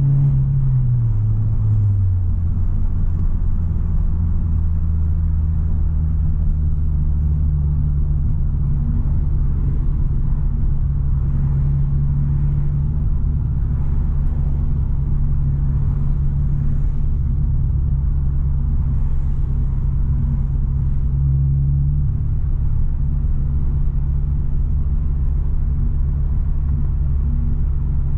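Subaru BRZ's flat-four engine and loud, deep-toned exhaust droning inside the cabin while cruising. In the first couple of seconds the pitch falls as the revs drop, then the drone holds steady and low.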